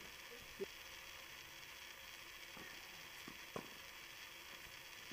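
Tennis ball struck by rackets during a doubles rally: two short, sharp knocks about three seconds apart over a faint steady hiss.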